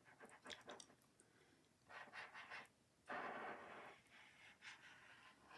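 Near silence with faint tabletop handling: the tip of a squeeze bottle of liquid glue scratching across cardstock as glue is drawn on, heard as a few light taps and two soft hisses, the second louder, about two and three seconds in.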